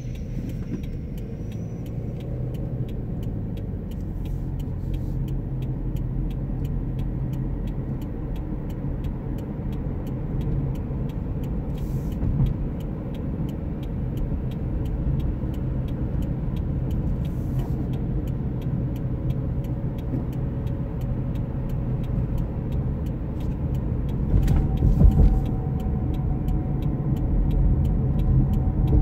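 Car engine and tyre noise heard from inside the cabin while driving at a steady pace: a continuous low rumble with a few brief bumps, the loudest near the end.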